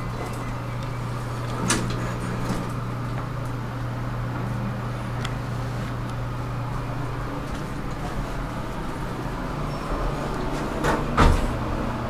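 Otis elevator car at a landing with a steady low hum, a sharp click about two seconds in. Near the end the sliding car and landing doors close, with two knocks as they shut, the second the loudest.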